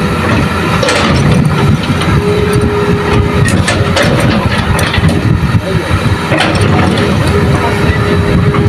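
Hitachi hydraulic excavator's diesel engine running under load as it digs and swings soil and rock into a dump truck. Scattered knocks of earth and stone are heard, and a steady mid-pitched tone comes in twice.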